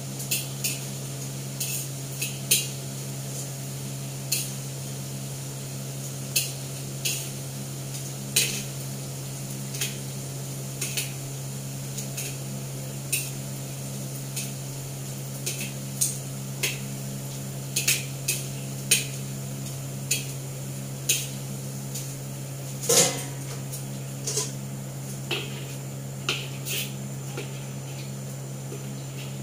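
Metal tongs and a wire strainer clinking and scraping against a large wok while frying: dozens of sharp, irregular clicks, with one louder ringing scrape about two-thirds of the way through, over a steady low hum.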